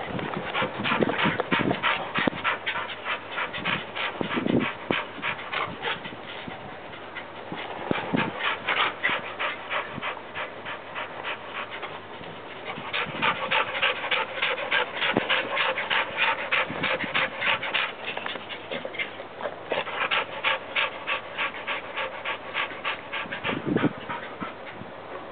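Yellow Labrador retriever panting quickly in an even rhythm, with a couple of brief pauses.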